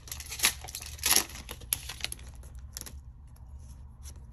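Foil Pokémon booster pack wrapper crinkling as cards are pulled out by hand, with a few sharp crackles in the first two seconds, then quieter rustling and a small click near the end.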